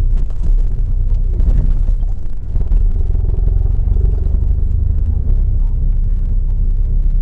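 Steady low rumble of a Hyundai Avante AD (Elantra) heard from inside its cabin, engine and tyre noise while driving at low speed.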